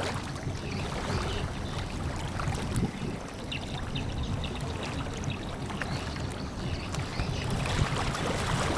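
Steady rush of sea water and wind around a container ship under way, rumbling low with faint scattered ticks.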